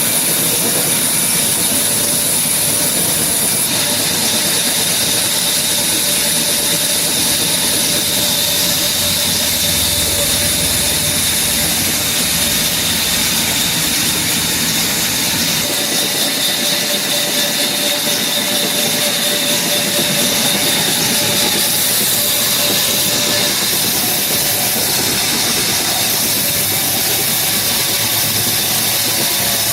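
Power saw running steadily through a cut in heavy red hardwood: a continuous machine noise with a thin high whine over a hiss.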